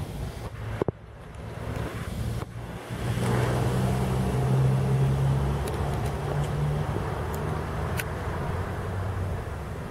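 Ambulance van driving past without siren: a steady engine drone with tyre noise that swells from about three seconds in, is loudest around the middle and then slowly eases off. A short sharp knock about a second in.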